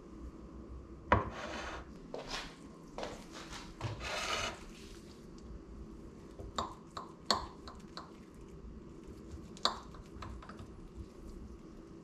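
A plate knocks down onto a kitchen counter about a second in, followed by several rubbing, scraping strokes. Later come scattered sharp clinks of a metal fork and knife against the plate as the chicken is cut.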